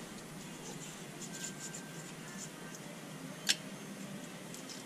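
Light scratching and rubbing as a sealing surface on a truck axle part is cleaned off by hand before sealing, with one sharp click about three and a half seconds in.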